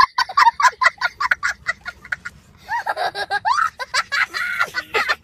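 A young child laughing excitedly in quick bursts, about five a second, then longer squealing sounds that bend up and down in pitch.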